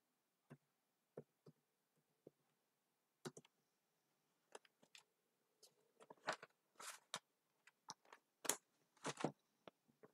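Faint, scattered clicks of computer keys, a few at a time in the first half and a quicker, louder run from about six seconds in, over near silence.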